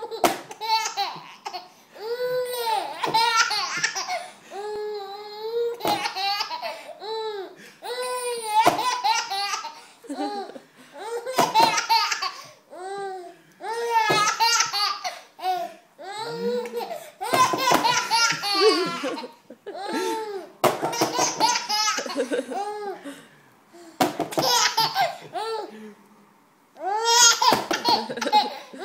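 A baby laughing hard in repeated bouts of high-pitched, pulsing belly laughs, each bout a second or two long with short breaks for breath between them.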